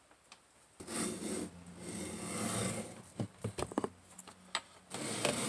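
Wooden sand-casting flask being separated, the cope lifted off the drag: scraping and rubbing of wood and oil-bonded sand in bursts, with a few sharp knocks a little past halfway.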